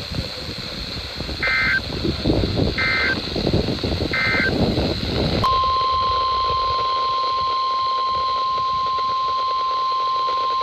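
NOAA Weather Radio EAS data tones: three short, identical digital bursts of the end-of-message code, about a second and a half apart, closing the previous alert. About five and a half seconds in, the steady 1050 Hz weather radio alarm tone starts and holds, announcing the next warning.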